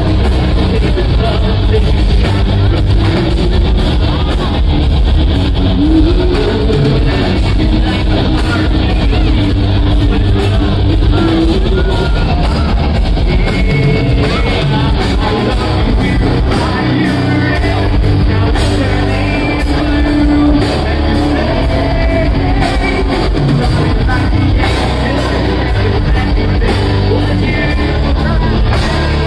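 A rock band playing live: electric guitars, bass guitar and drums with singing, loud and continuous, heard from the audience in a large hall.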